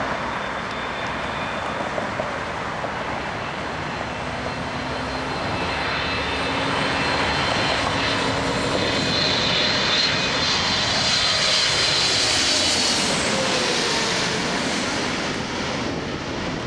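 Air Canada Boeing 777's GE90 turbofan engines roaring as the jet passes, growing louder with a high fan whine, then easing off with the pitch dropping as it goes by.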